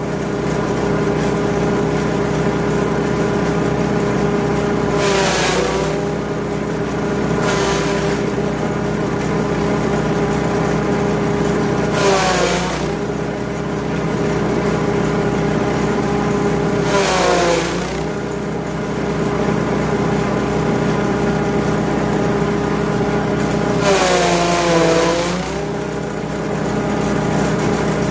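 Grass chopper machine driven by a 5.5 HP petrol engine, running steadily. Several times the engine note sags and recovers with a brief rush of noise, as the engine takes the load of material being fed through and chopped.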